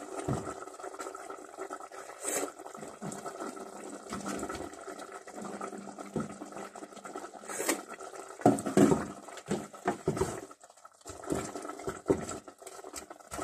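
Wooden spoon stirring and scooping in a steaming pot of simmering chicken adobo, with mouth sounds as the hot sauce is tasted: irregular small knocks and smacks, the loudest about eight and a half seconds in, over a faint steady hum.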